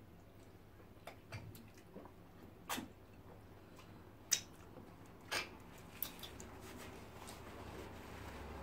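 Close-up eating sounds: chewing and wet mouth clicks and lip smacks from eating fish pepper soup with starch by hand and licking the fingers. There are about seven sharp smacks, the loudest about four seconds in.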